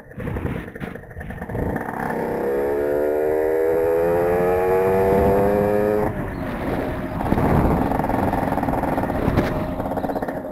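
Small dirt-bike motorcycle engine heard while riding. It runs unevenly at first, then pulls through a gear with a steadily rising pitch for a few seconds. About six seconds in this breaks off suddenly into a rougher, less even drone.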